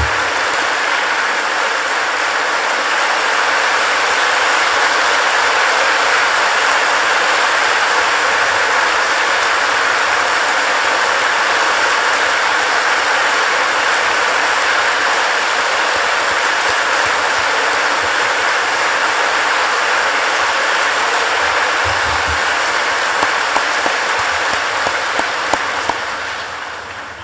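Large audience applauding steadily after a speech. Near the end the clapping thins to a few last single claps and dies away.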